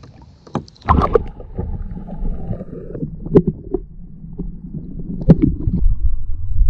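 Muffled underwater sound heard through a submerged action camera: a low rumbling slosh of water against the housing, with a splash-like thump about a second in as a spotted bass is released, and a few sharp knocks later.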